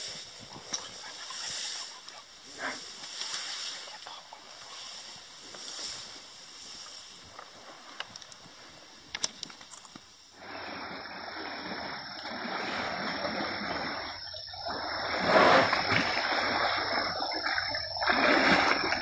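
Sumatran elephants wading in a shallow river: water splashing and sloshing around their legs. It starts suddenly about halfway through, and the splashes are loudest about three-quarters of the way in and near the end. Before it there is only faint, pulsing outdoor background noise.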